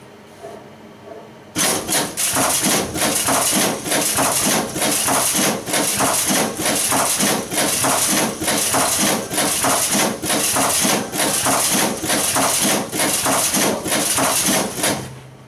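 Automated blinds-making machine running: a rapid, regular mechanical clatter with hiss, about two strokes a second. It starts suddenly about a second and a half in and winds down near the end.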